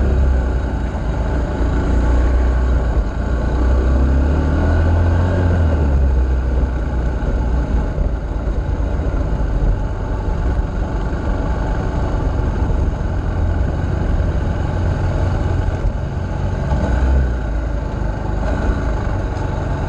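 Off-road vehicle engine running as it is ridden along a dirt trail, its pitch rising and falling with the throttle a few seconds in.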